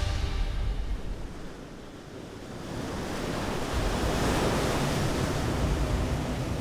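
Ocean surf: waves washing in, a rushing hiss that dies down and then swells again about halfway through as a wave breaks.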